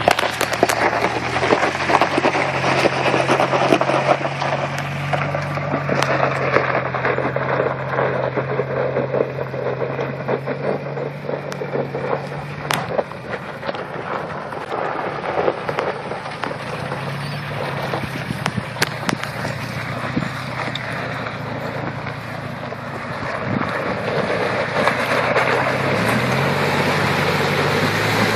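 A lifted 1987 Toyota 4Runner's engine running and changing pitch as the truck drives over dirt and gravel. Near the end it fords a shallow river and water splashes around its tyres.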